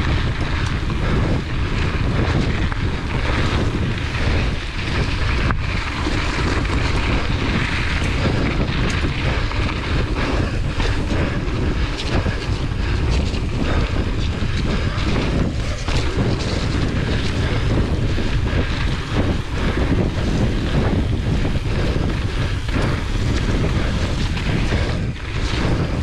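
Wind rushing over a GoPro's microphone while a hardtail mountain bike's tyres roll fast along a dirt singletrack, with frequent clicks and rattles from the bike over bumps.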